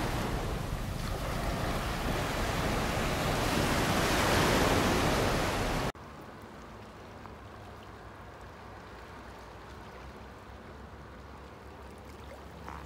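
Sea waves breaking and washing up a sandy beach, surging louder about four seconds in. The sound cuts off abruptly about six seconds in, replaced by much quieter water lapping among shoreline rocks.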